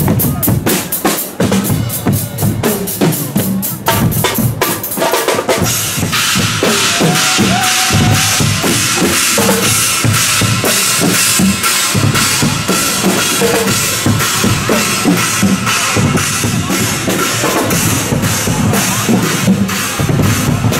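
Guggenmusik carnival band playing, driven by a steady beat of bass and snare drums. About six seconds in, the playing grows fuller and brighter.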